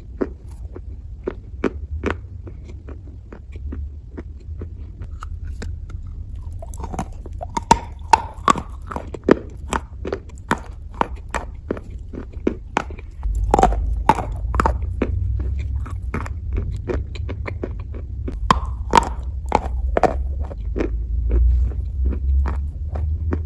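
Close-up biting and chewing of soft, wet brown clay: irregular crunches and sticky mouth clicks, one after another, over a steady low rumble that gets louder about halfway through.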